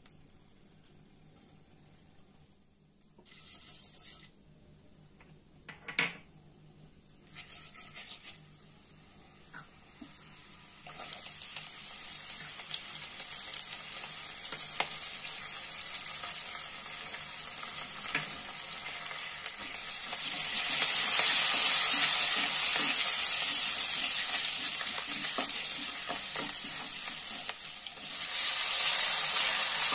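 A few short knocks and brief noises, then hot oil in a nonstick kadai begins to sizzle about ten seconds in. The sizzle grows as spices, curry leaves and then chopped onion and green chilli masala fry, and it is loudest from about twenty seconds in, with a short dip near the end.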